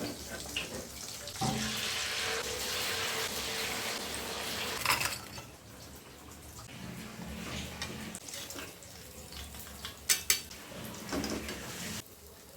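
Tap water running into a kitchen sink for a few seconds, with dishes and cutlery clattering, then two sharp clinks of crockery or utensils about ten seconds in.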